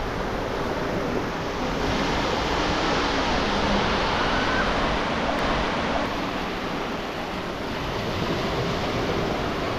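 Sea waves washing onto a beach in a steady wash that swells about two seconds in and eases off later, with some wind noise on the microphone.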